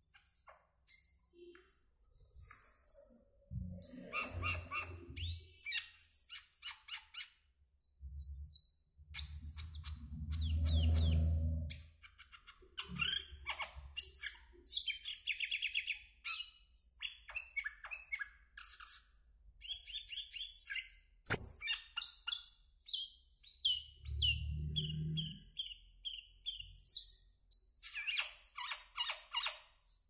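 Asian glossy starling singing a varied song of short chirps, clicks and whistled notes. A few low rumbles sound underneath, and there is one sharp click about two-thirds of the way through.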